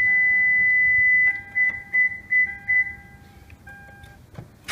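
Electronic warning beeps: a steady high beep breaks into about four short beeps a little over a second in, then stops. A click comes near the end, just before the car's engine is started.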